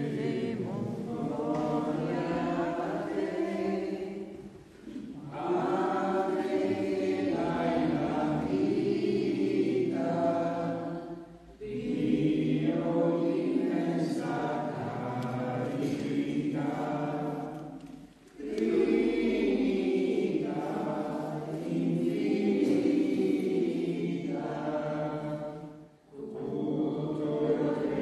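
A group of voices singing a hymn in long phrases of about seven seconds, each followed by a brief pause for breath.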